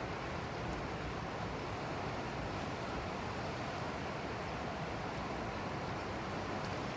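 Steady, even rush of ocean surf washing against the rocks, mixed with wind.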